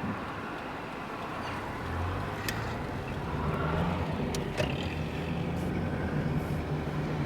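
Car engine running with a steady low hum that grows stronger about two seconds in, with a few faint clicks over it.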